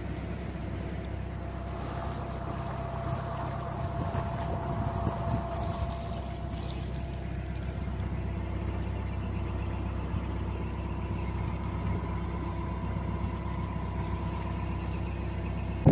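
Narrowboat's diesel engine running steadily under way, an even low chug with a faint thin whine above it.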